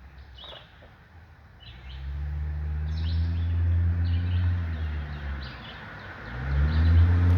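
Birds chirping in short calls about once a second, while a vehicle engine swells up and fades away in the middle, and another comes up loud near the end.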